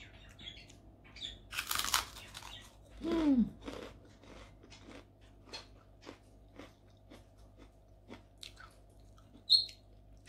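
Biting into a crisp fried kerupuk cracker, a loud crunch about two seconds in. A short falling 'mm' of the voice follows, then steady crunchy chewing with small crackles about twice a second.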